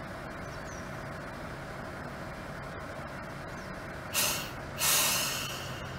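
A diesel railcar engine runs steadily. About four seconds in come two loud, short blasts of compressed-air hiss from the air brakes, released as the railcar gets ready to move off.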